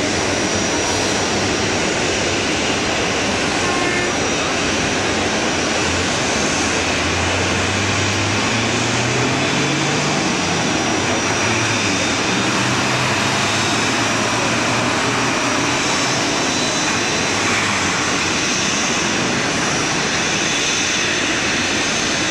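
Boeing 737 jet engines running at idle during pushback: a steady, loud noise with a thin high whine. A lower hum climbs in pitch from about eight to eleven seconds in.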